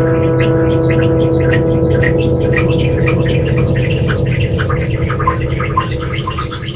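Ringing notes of a plucked string instrument: a low hum with several steady higher tones, slowly fading toward the end, with scattered high tinkling ticks over them.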